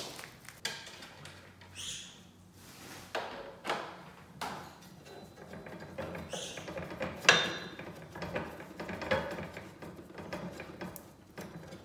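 Hand-fitting bolts into a steel rowing-machine leg bracket: scattered light metal clicks and knocks, with one sharp knock about seven seconds in and a couple of brief rustles.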